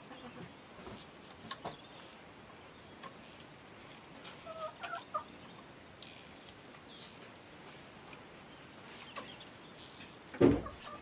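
Domestic chickens clucking faintly now and then, with small scattered knocks. A loud thump near the end is the loudest sound.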